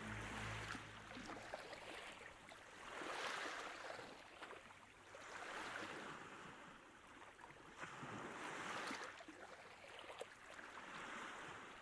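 Small waves of the Sea of Azov washing in on the shore, faint, each swell rising and falling away about every three seconds.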